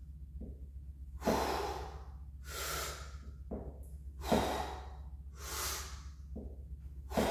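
A man breathing deeply in and out, one breath about every second, timed to the lifts of a barbell bench press. A steady low hum sits underneath.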